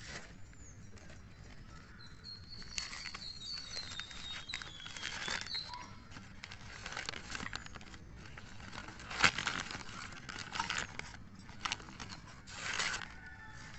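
Newspaper wrapping crinkling and rustling in irregular bursts as it is pulled open by hand, with a sharp crackle about nine seconds in.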